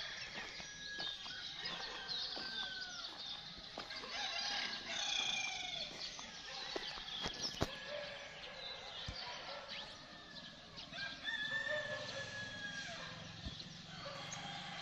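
Roosters crowing among the overlapping calls of other birds.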